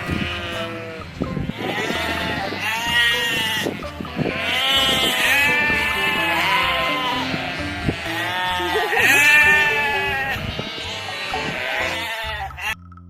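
Bleating farm animal, several long wavering bleats in a row, over steady background music.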